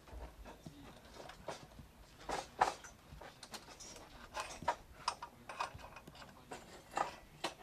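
Irregular clicks and knocks of a camera dolly track's metal rails being handled and set on their wooden sleepers, with the loudest knock a little over two and a half seconds in.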